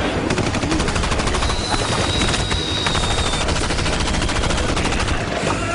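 Rapid automatic gunfire, shots following each other in a dense, continuous stream, with a thin high whine over it for a couple of seconds near the middle.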